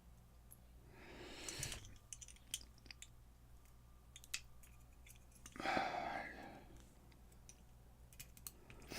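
Faint light clicks and taps of small lock pins and springs being handled and set down, with two short rustling scrapes about a second in and near the middle.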